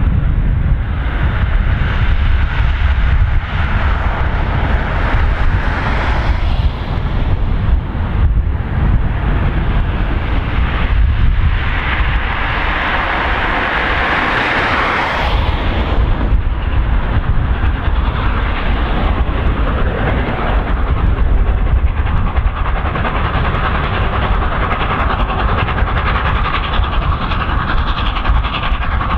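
Steam locomotive hauling a passenger train at a distance: a steady rumble and running noise of the train on the rails. A louder hiss swells about twelve seconds in and fades a few seconds later.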